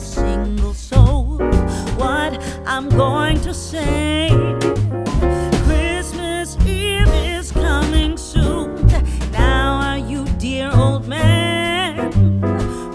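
Background music: a song with a wavering sung melody over piano, bass and a steady beat.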